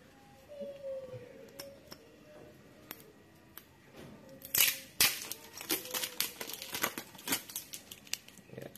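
A label being peeled and torn off a small glass bottle. A rapid run of crackling rips starts about four and a half seconds in and goes on until near the end, loudest at the start, with softer handling sounds before it.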